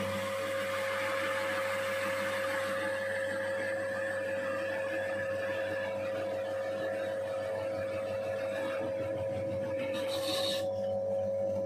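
Electric motor of a sticker roll cutting machine running steadily, with a hum and a steady whine, spinning a roll of vinyl sticker material. A blade pressed into the turning roll slices through it with a hiss, which eases off midway and flares up briefly near the end.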